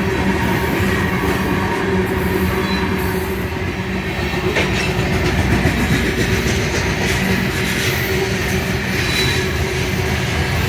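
Ferromex freight train rolling past, steady wheel-on-rail noise with clickety-clack over the rail joints.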